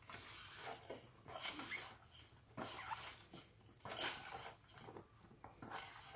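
A hand mixing oyster mushrooms coated in cornstarch, seasoning and raw egg in a stainless steel bowl: irregular wet squishing and rustling, with a few short squeaks.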